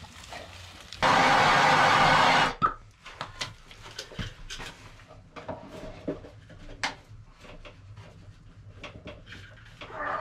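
A loud burst of rushing noise lasting about a second and a half, starting and stopping abruptly. Scattered clicks, knocks and rubbing of pipe and fittings being handled follow.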